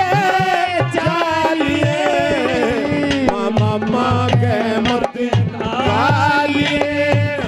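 Haryanvi folk music: a melody line with sliding notes over a steady hand-drum beat.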